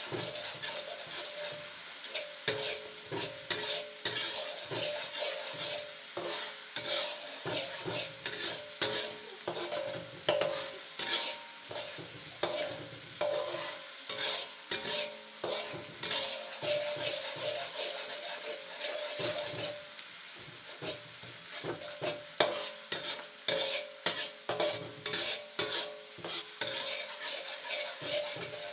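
Ground chili, garlic and shallot spice paste sizzling in hot oil in an aluminium wok, with a metal spatula scraping and stirring it about twice a second. The paste is being sautéed until it is cooked and fragrant.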